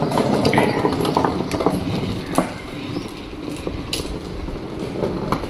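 Plastic wheels of a child's ride-on swing car rolling over interlocking concrete paver tiles: a continuous rumble with scattered clicks, louder in the first half and easing after about two and a half seconds.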